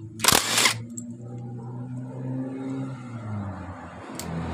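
A short burst of a power drill driving out a bolt of the starter-gear retaining plate on a motorcycle engine, followed by the steady hum of a motor vehicle engine running in the background.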